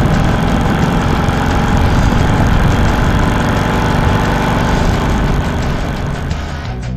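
Motorcycle engine running steadily while riding, with wind rush on the bike-mounted microphone.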